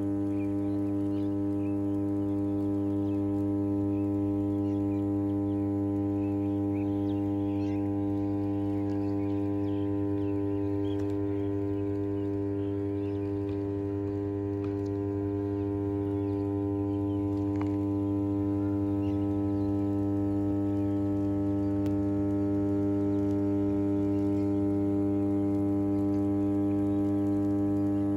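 100 MVA substation power transformers humming: a steady low electrical drone with a stack of higher overtones, the normal hum of energised transformer cores.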